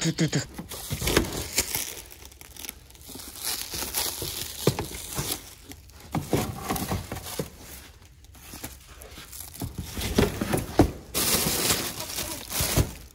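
Plastic wrapping, bubble wrap and cardboard crinkling and rustling as wrapped parts in a box are handled and shifted, with occasional knocks. It is loudest for a couple of seconds near the end.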